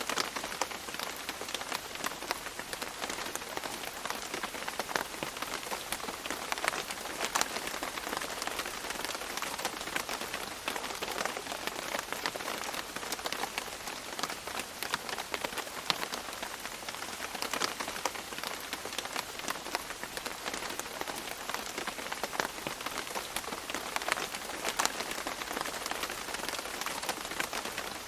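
Steady rain pattering on leaves, with many separate drops ticking over a continuous hiss.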